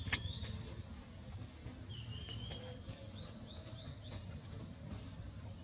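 Birds chirping: a short held note about two seconds in, then four quick rising chirps in a row, over a low steady background rumble.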